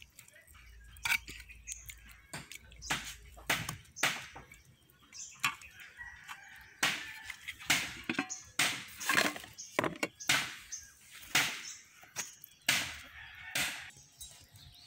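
Chickens clucking: a string of short, sharp calls scattered irregularly, with one longer call about six seconds in.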